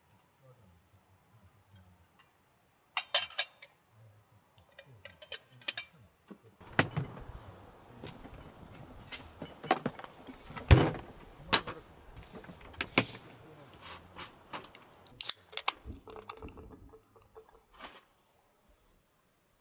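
Metal camp gear being handled: a scatter of light metallic clinks and knocks, starting after a few quiet seconds and coming thick in the middle, with the loudest knock about halfway through.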